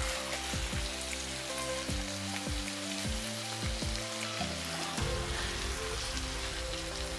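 Chicken in a tomato and pepper sauce simmering in a frying pan, with a steady sizzling and bubbling.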